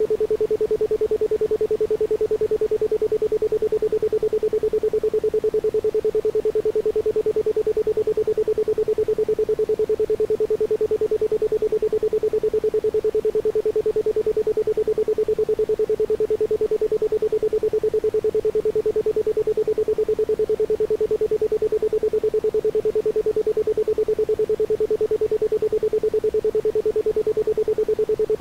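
Isochronic tone for brainwave entrainment: a steady 432 Hz pure tone pulsed on and off in a fast, even rhythm, with nothing else behind it.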